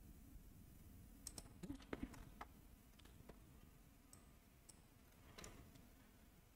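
Near silence broken by faint clicks of a computer mouse and keyboard, mostly a quick cluster of about half a dozen clicks between one and two and a half seconds in, with a few single clicks later.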